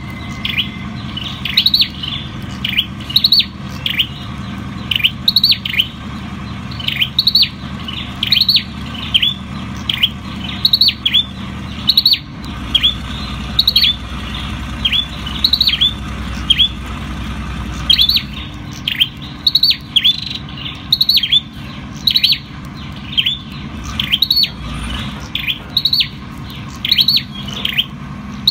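Olive-backed tailorbird singing: a long run of sharp, downward-sweeping notes, mostly in twos and threes, repeated about once a second over a low steady hum.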